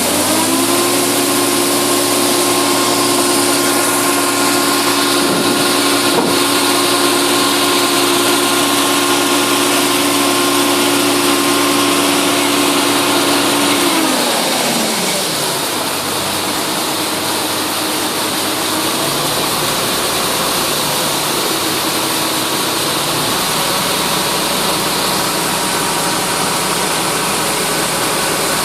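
Massey Ferguson 9690 combine running with a steady mechanical rush and a whine. The whine rises just after the start, holds steady, then winds down in pitch and fades about 14 seconds in. A fainter, lower whine comes in later.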